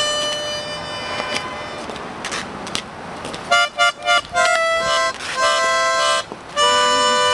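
Instrumental music of held chords, several notes at once, coming in short phrases that grow loud about halfway through. Before that, a noisy background with the music faint under it.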